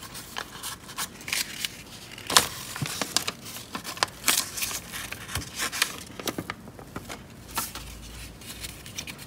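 Paper backing sheet of edible silver leaf (varq) rustling and crinkling as it is handled and pressed down by hand. It comes as a string of short scratchy rustles, the sharpest about two and a half seconds in.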